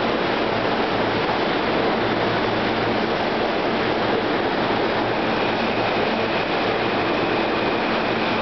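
R160A subway train cars rolling past close by along the platform, a steady loud rush and rumble of wheels on rail. A faint high whine joins about five seconds in.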